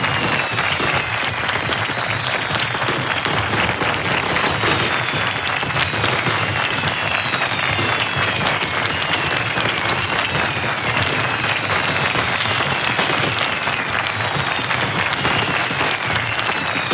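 Large crowd applauding steadily, a dense even clapping with no breaks, with long whistles sliding down in pitch every few seconds over it.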